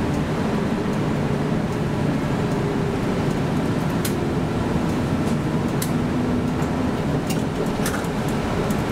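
Bus running on the road, heard from inside the cabin: a steady drone of engine and road noise whose low engine tones shift slightly, with a few light ticks or rattles.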